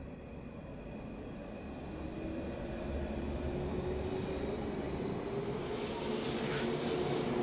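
485-series Yamadori train pulling out of the station and gathering speed, its running noise growing steadily louder with a hum slowly rising in pitch. A brief hiss comes about six seconds in.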